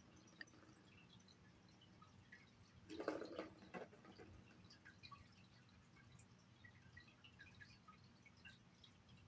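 Near silence with faint scattered ticks. About three seconds in, a short burst of rustling noise, under a second long and ending in a click, as a cat paws at a plastic ball-track toy with a cardboard scratch pad.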